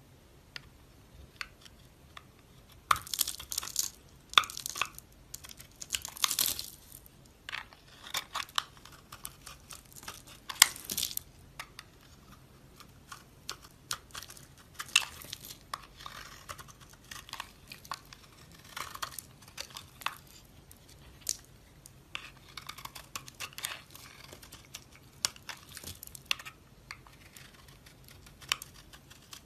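Knife cutting through dry soap: irregular crisp crunches and short scraping strokes, with a few longer scrapes about three, six and eleven seconds in.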